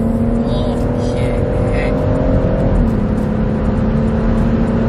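Interior drone of a stage 2 tuned BMW M140i's turbocharged 3.0-litre straight-six on the move, over tyre and road rumble: a steady hum that climbs slowly and dips slightly about three seconds in.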